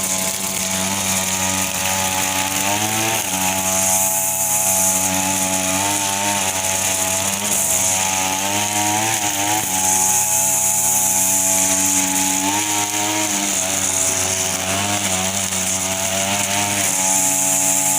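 Small petrol engine of a three-wheel push grass cutter running fast, its pitch dipping and recovering every few seconds.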